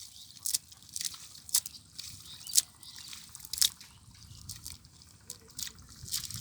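Water dripping, single sharp drops falling at uneven intervals about once a second.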